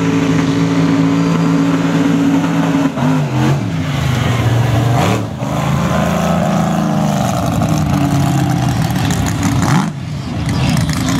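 Mega truck's engine running at high revs as the truck drives through the mud with its tyres spinning. The revs dip and climb back twice, about 3 and 5 seconds in, then hold high before dropping near the end.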